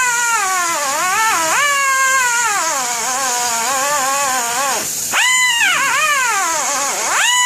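Rotary tool with a grinding bit cutting into a horn muzzle end, its motor whine sagging in pitch while it is pressed into the work and jumping back up sharply when it is eased off, about five and seven seconds in.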